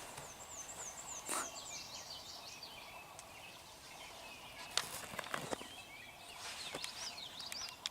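A songbird singing: quick, high, downward-sweeping chirps repeated in a phrase, with a few faint knocks or rustles.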